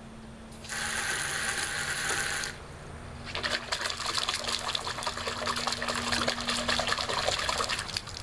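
A steady hiss of water that cuts in suddenly and stops about two seconds later. Then several seconds of water splashing and pattering onto concrete as the drinking cup cut from a 2-liter bottle is tipped and squeezed empty; the splashing stops near the end.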